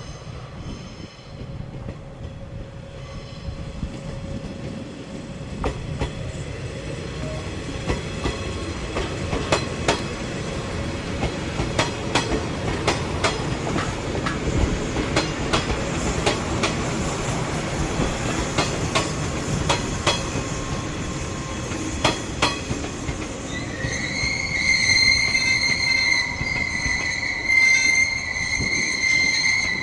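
A JR West 381 series electric train running slowly, with a steady rumble and its wheels clicking irregularly over rail joints. Near the end a steady, high-pitched wheel squeal sets in and holds as the train moves into the depot sidings.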